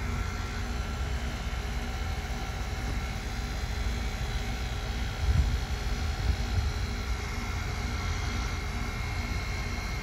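Outdoor unit of a 1981 Bryant heat pump running: the fan and compressor make a steady drone with a low rumble and faint steady hum tones. A few louder low rumbles come about five to six and a half seconds in.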